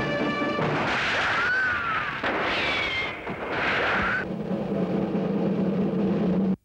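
Orchestral music breaks off just after the start. Loud rushing noise follows, with three whistling glides in pitch, and then a low steady hum from about four seconds in that cuts off abruptly.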